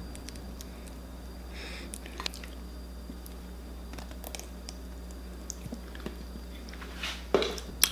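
Light handling clicks, then a plastic squeeze bottle of ketchup squelching and sputtering out sauce in a few short squirts near the end.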